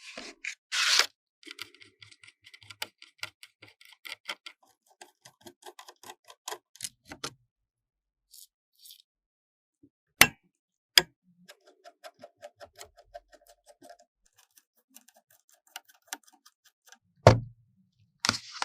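Computer parts and their packaging being handled during a PC assembly: a run of small plastic and metal clicks and ticks, short scrapes, and three sharper knocks, the last near the end the loudest.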